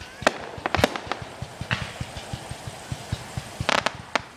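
Aerial fireworks going off: sharp bangs and crackling pops at irregular intervals, with a quick cluster of reports about three and a half seconds in.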